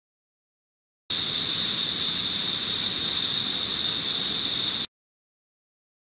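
Steady, shrill rainforest insect chorus, a dense high buzzing that starts abruptly about a second in and cuts off suddenly near the end.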